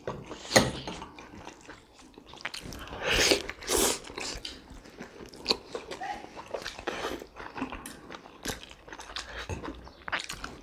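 Close-up eating sounds of jumbo pork momos being bitten and chewed by hand, with irregular wet mouth noises and a few louder bites about three to four seconds in.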